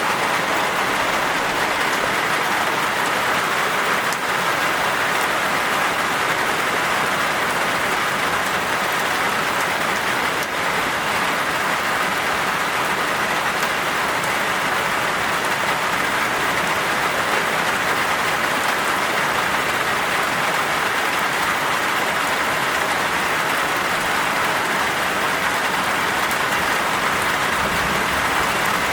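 Heavy rain pouring down in a steady, even downpour, a dense hiss with no let-up.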